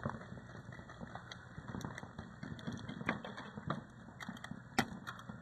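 Scattered sharp clicks and knocks at an irregular pace over a steady noise, with the two strongest about three seconds in and near the end.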